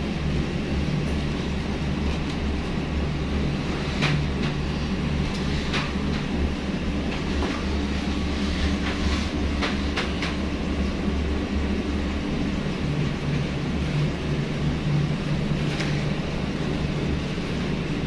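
Steady low mechanical hum of a running machine, with a few light clicks and taps of hands handling the washing machine's hoses and parts, about four times.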